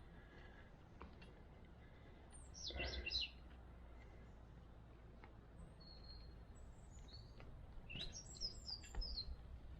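A bird chirping: two short runs of quick, high, falling chirps, the first about two and a half seconds in and the second near the end, over a faint low hum.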